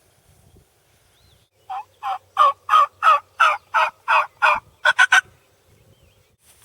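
A turkey call run as a series of hen turkey yelps, about nine evenly spaced notes at roughly three a second, then three quick, higher notes, calling in a gobbler.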